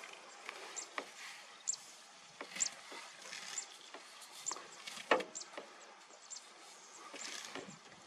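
An African elephant feeding on grass close by: irregular crackles and snaps of grass stems being pulled and torn, the loudest about five seconds in.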